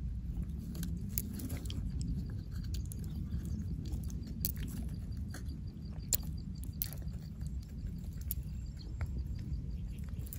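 Fingers squeezing and picking through the wet flesh of an opened freshwater pearl mussel to press out pearls: soft squelching with scattered sharp clicks, over a steady low rumble.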